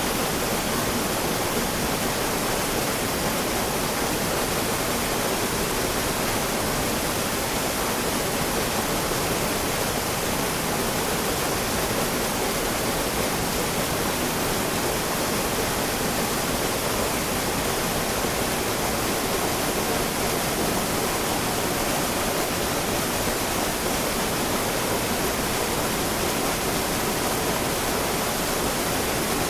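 River water flowing steadily in a continuous rushing hiss.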